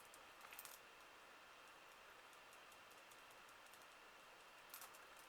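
Near silence: faint room hiss with a few soft, light clicks, a small cluster about half a second in and another near the end.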